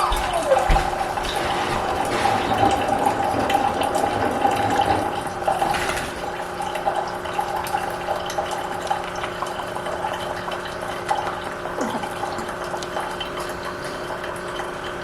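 Water running steadily, with a faint steady hum under it.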